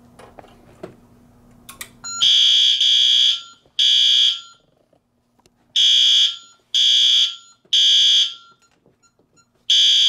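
Fire alarm keypad sounders on a Honeywell Vista panel beeping in the temporal-three fire evacuation pattern. The high-pitched beeps come in groups of three with a longer gap between groups, starting about two seconds in after a few faint clicks. The alarm is set off by activating a smoke detector on the panel's keypad bus.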